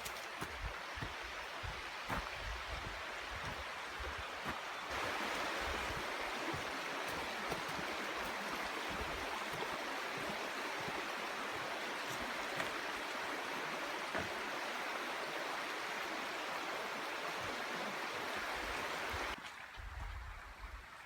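River water rushing steadily, growing louder about five seconds in and falling away sharply near the end. Low thumps of footsteps or handling sound underneath.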